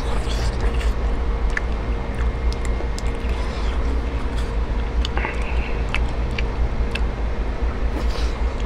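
A person chewing and eating tteokbokki with chopsticks close to a clip-on microphone, with small scattered clicks. Underneath runs a steady low rumble with a faint steady hum.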